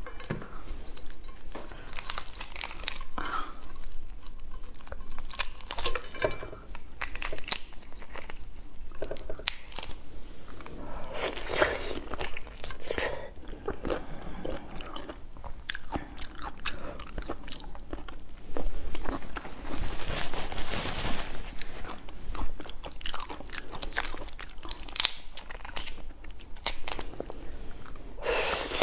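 Close-miked cracking and crunching of raw tiger prawn shells as they are pulled apart and bitten, mixed with wet chewing. There are many small irregular cracks, with louder bursts of crunching now and then.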